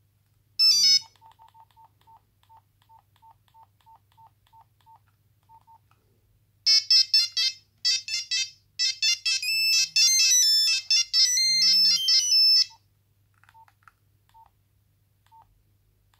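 Nokia 3410 mobile phone playing a monophonic ringtone through its small speaker: a quick tune of high beeping notes lasting about six seconds, starting about halfway in. A short beep sounds near the start, followed by a run of faint, evenly spaced ticks.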